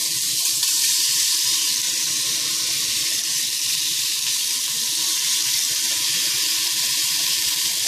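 Diced thick-cut bacon sizzling steadily in a preheated caldero as the pieces are dropped in and begin to render their own fat.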